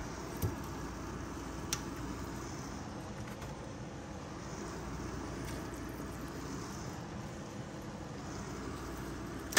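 Steady low background hum of kitchen noise, with two faint light clicks about half a second and nearly two seconds in.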